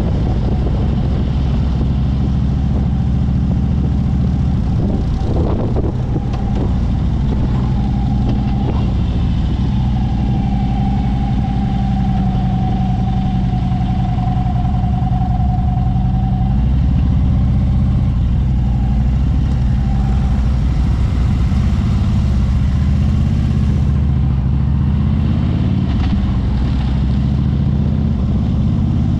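Harley-Davidson V-twin motorcycle engine running as the bike cruises at low speed, its pitch wavering with the throttle a little past halfway.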